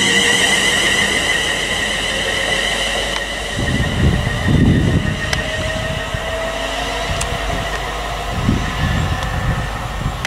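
Class 350 Desiro electric multiple unit pulling away, its traction motors whining in a tone that climbs slowly as the train gathers speed, over steady wheel and rail noise. Low rumbling surges come about four seconds in and again near the end.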